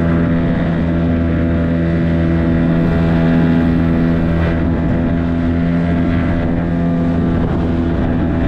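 Outboard motor of a small aluminium dinghy running at a steady throttle, its pitch holding constant, as the boat travels through swell.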